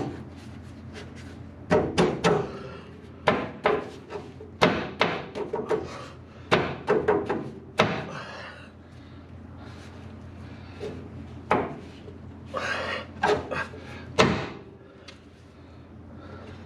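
Hand tools and metal parts being handled: irregular knocks and clanks, some in quick clusters, with a few short scrapes.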